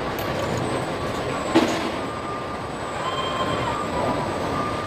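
Car body-shop assembly line with KUKA industrial robots and conveyors running: a steady mechanical din with a thin, steady whine through it. There is one sharp click or clank about a second and a half in.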